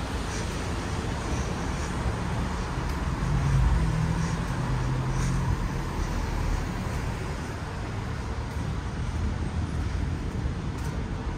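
Road traffic on a town street: a steady rumble of passing vehicles, with one vehicle passing close about four seconds in, when the sound swells and then eases.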